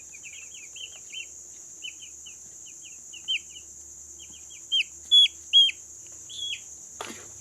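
Eight-day-old chicks peeping: a run of short, high, falling cheeps, the loudest three coming about five seconds in. A steady high insect trill runs beneath, and a brief knock sounds near the end.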